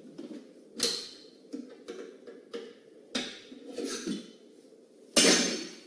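Desk-side handling and rummaging noises: a sharp knock about a second in, a few softer knocks and scrapes, then a louder scraping noise lasting about half a second near the end.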